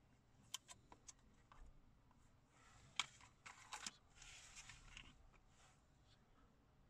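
Faint handling sounds of a phone case and a plastic packaging tray: a few light clicks, a sharper click about three seconds in, a quick run of clicks, then a short rustle of plastic.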